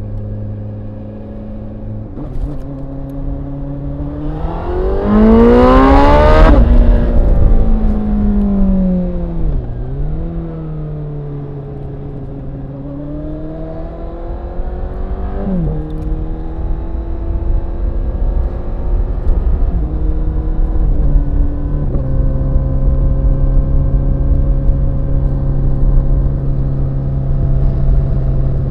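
Honda CBR1000RR SP's inline-four engine under way: revs climb hard to the loudest point about five to seven seconds in, then fall away. They climb again and drop suddenly with gear changes, and the pitch holds steady near the end.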